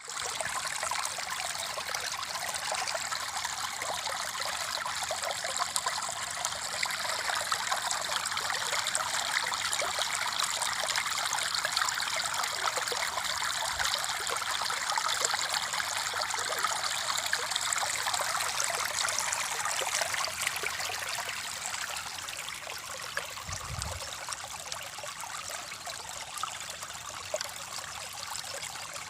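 River water flowing and trickling steadily, a little quieter in the last third.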